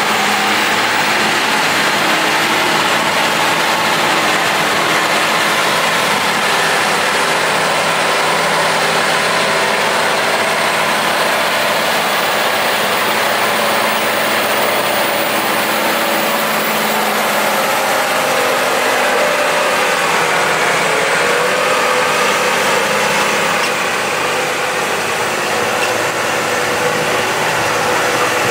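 Diesel engines of large John Deere farm tractors running steadily at working speed, with a constant engine drone and some shift in pitch past the middle.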